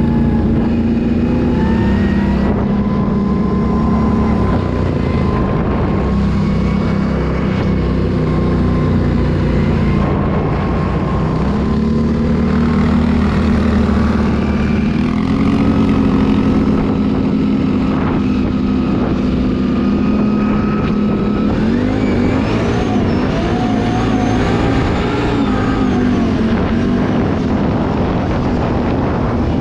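Can-Am ATV engine running under way, steady in loudness, its pitch stepping up and down with the throttle and wavering near the end.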